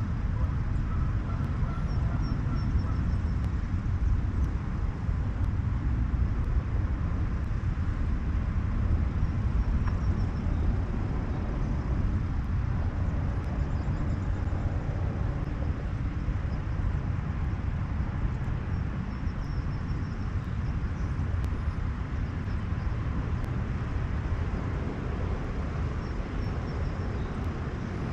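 Steady low rumble of open-air background noise, with a few faint bird calls above it, the clearest in the first few seconds.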